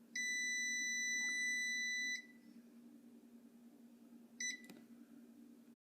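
Sharp Smart Carousel microwave beeping: one long, high beep of about two seconds, then a short beep and a click a couple of seconds later, over a steady low hum.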